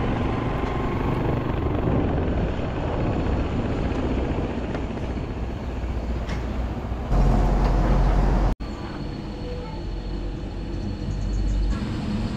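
Motorcycle engine running with wind noise on the microphone while riding. The low rumble gets louder about seven seconds in, and there is an abrupt cut a little later.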